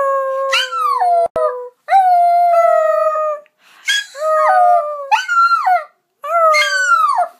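Poodle howling in a run of about five drawn-out howls, each gliding up and down in pitch with short breaks between them. The dog is howling along in answer to its owner's singing.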